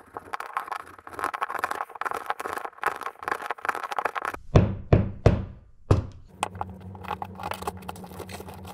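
Utility knife blade rasping in quick strokes as it saws through drywall along the edge of a box cutout. About four and a half seconds in come a few heavy thunks, followed by a low steady hum.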